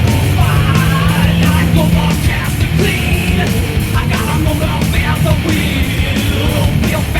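Loud heavy rock music with a driving, distorted sound.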